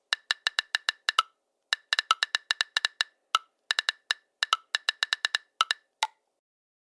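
Typing on a smartphone's on-screen keyboard: a fast run of short, sharp key clicks, several a second, with brief pauses. A few clicks are lower-pitched than the rest, the last one lowest of all.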